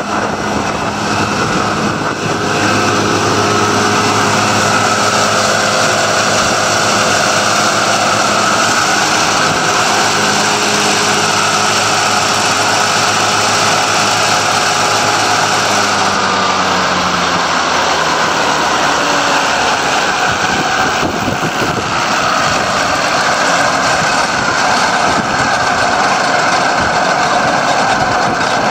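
New Holland 1442 Discbine disc mower-conditioner running under tractor PTO power, its cutterbar discs spinning at speed with a steady mechanical whir over the tractor's engine. The pitch eases down a little about halfway through.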